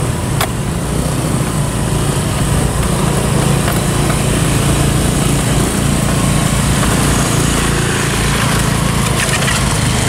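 Small motor-scooter engines running steadily as several scooters ride slowly past one after another on a muddy dirt track.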